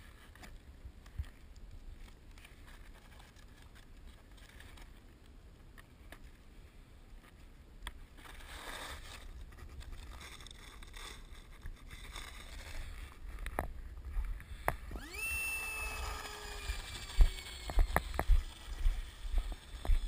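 Wind rumbling on the microphone. About fifteen seconds in, a high whine starts suddenly and slowly falls in pitch, and several loud thumps follow near the end.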